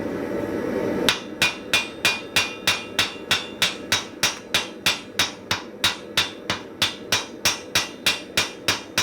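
Hand hammer striking hot iron in a steady run of light blows, about three a second, starting about a second in after a steady rushing noise. The blows are consolidating a forge weld on a post anvil's faceplate.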